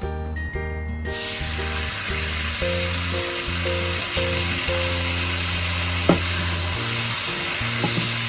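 Food sizzling in a frying pan, starting suddenly about a second in and running on steadily, with a sharp click from a utensil about six seconds in. Background music plays underneath.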